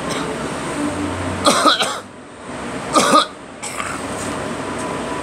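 A person coughing: two sharp coughs about a second and a half apart, over steady background noise.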